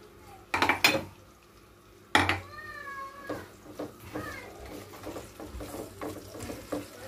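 Wooden spatula and hands knocking and scraping in a frying pan of chopped kokoreç as it is stirred and seasoned: sharp knocks about half a second in and again just after two seconds, then a run of light taps and scrapes. Right after the second knock comes a brief high, wavering cry.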